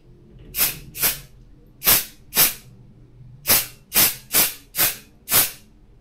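Aerosol can of Magnaflux SKD-S2 developer spray hissing in nine short puffs, two pairs followed by a run of five, as it dusts a glossy glass phone back matte for 3D scanning.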